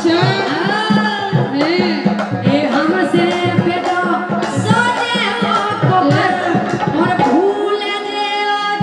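Bundeli Rai folk song sung live into a microphone over a hand-drum beat. The drum drops out near the end while the singing carries on.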